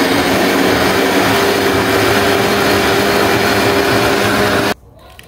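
Countertop blender running at full speed, puréeing onions, peppers, ginger, garlic and herbs into a thick paste: a loud, steady motor whir with a hum under it. It switches off abruptly near the end.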